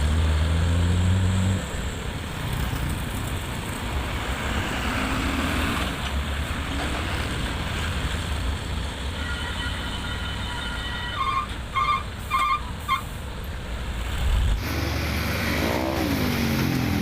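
Heavy diesel machinery engine running steadily, cutting off about a second and a half in, followed by steady roadside traffic noise with four quick high beeps near the middle. Music comes in near the end.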